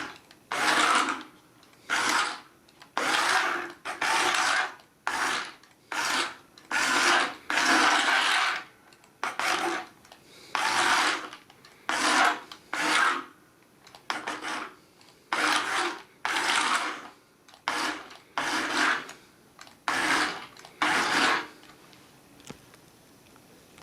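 Remote-control Transformers Bumblebee toy's electric motor and plastic gears whirring in about twenty short, stop-start bursts as it is worked from the remote.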